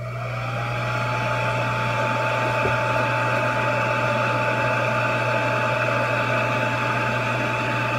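Board preheater switched on: its blower spins up over the first second, a whine rising to a steady pitch, then runs with a steady rush of air while the heating element warms up.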